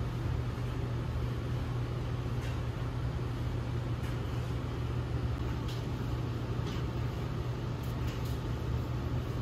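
A steady low machine hum, with several faint, short high hisses from a perfume atomizer being sprayed onto a paper test strip.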